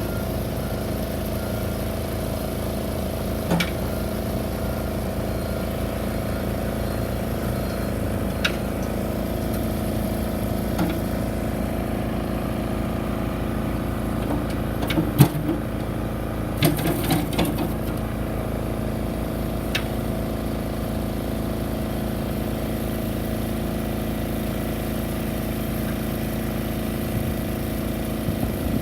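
Komatsu PC55MR-3 midi excavator's diesel engine running steadily at idle, with a few short knocks and clanks now and then.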